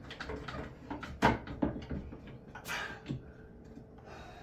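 A few sharp knocks and clunks of tools and a metal bar being handled against a wooden cabinet box, the loudest about a second in and again near three seconds, over quieter rattling.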